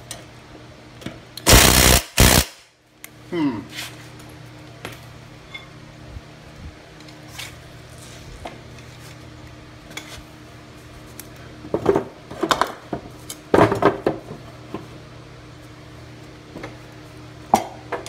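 Cordless impact wrench hammering on a lawnmower's blade bolt, a burst of just under a second about one and a half seconds in with a short second burst right after. Later come scattered knocks and short bursts of tool noise, around twelve and fourteen seconds in.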